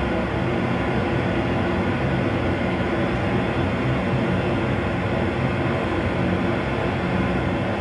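Steady cockpit rumble and hiss of a Boeing 737 full-motion flight simulator, its simulated engine and airflow noise, with the aircraft configured gear down and flaps 15 on the base leg.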